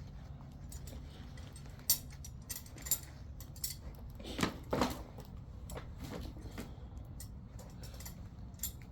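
Scattered light knocks and metallic clinks, a few louder ones about two, three and four and a half seconds in, over a steady low hum.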